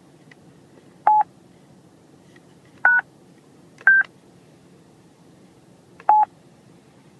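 Globalstar GSP-1600 satellite phone keypad beeps: four short key-press tones of differing pitch, one to two seconds apart.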